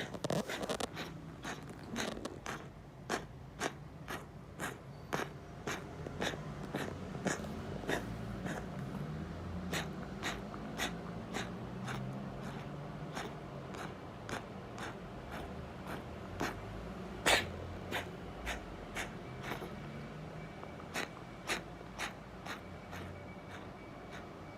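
A cat coughing in a long fit of short, repeated hacks, about one or two a second, with one louder hack about two-thirds of the way through.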